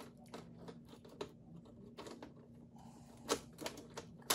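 Hands working insulated wires and small plastic wire connectors: scattered light clicks and rattles, with a few sharper clicks in the second half, over a faint steady hum.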